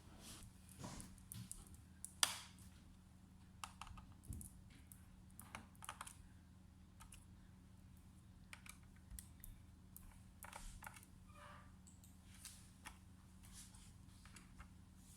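Faint, irregular small clicks and taps of hands working on a laptop, the sharpest about two seconds in, over a low steady hum.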